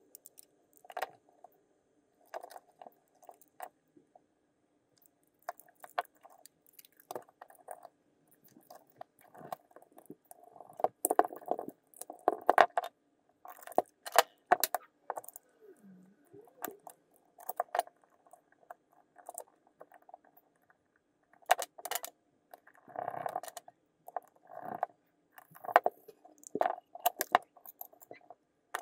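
Plastic housing and circuit-board parts of an Echo Dot being handled and fitted back together by hand: irregular clicks, taps and light scrapes, with busier clusters about halfway through and again near the end.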